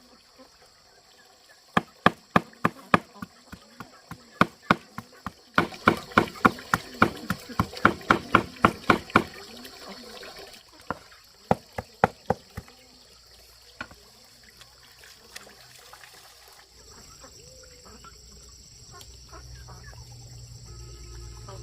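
Repeated chopping strikes, a knife on a cutting board: spaced out at first, then a fast run of about three a second, thinning out past the middle. A steady high insect buzz runs underneath.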